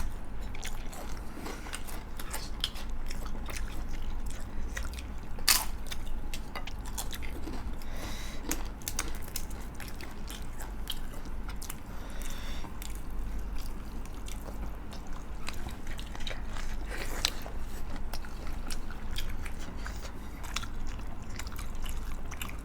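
Close-up eating sounds from a mukbang: chewing and biting, with many short sharp clicks and one louder click about five and a half seconds in.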